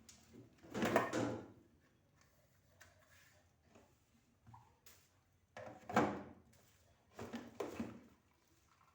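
Refrigerator drawers and shelves being handled during cleaning: three bursts of sliding and knocking, about a second in, about six seconds in, and a double one just after.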